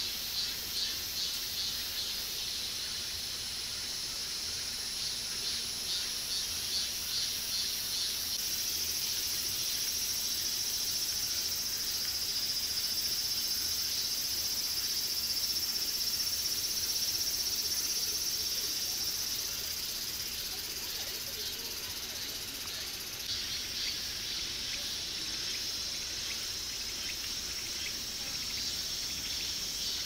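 A high-pitched chorus of summer insects. It pulses at about two beats a second at first, smooths into a continuous drone from about eight seconds in, and pulses again in the last several seconds.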